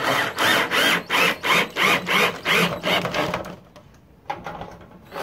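Cordless drill driving a neoprene-washer screw through a corrugated polycarbonate panel into a wood closure strip. The drill runs in short pulses, about three a second, and stops about three and a half seconds in; a few light clicks follow near the end.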